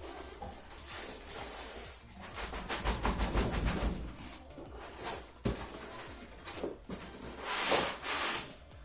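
Cardboard box and packing material being handled during unboxing: irregular rustling and scraping with small clicks, a sharp knock about five and a half seconds in, and a louder rustle near the end.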